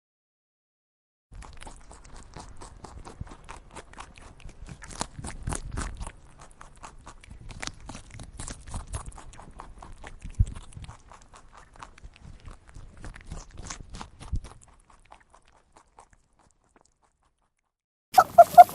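Irregular crunching and clicking for about thirteen seconds, from a farm animal. Near the end a different animal starts a loud call, repeated several times.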